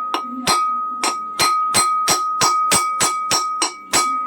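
Hammer striking a metal part of a ceiling fan to seat it in place: evenly spaced blows, about three a second, over a steady high metallic ring.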